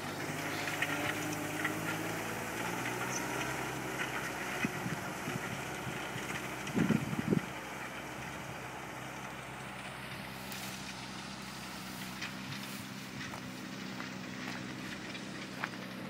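Fendt 818 Vario tractor's six-cylinder diesel running steadily under load while ploughing, moving away. A brief loud low thump comes about seven seconds in.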